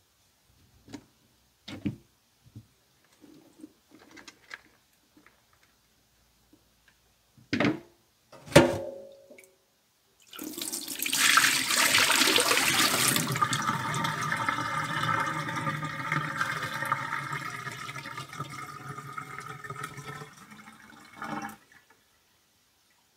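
Water running from a tap. It comes on suddenly about ten seconds in, is loudest for the first few seconds, then runs more evenly and stops near the end. Before it come a few scattered knocks and clicks of things being handled.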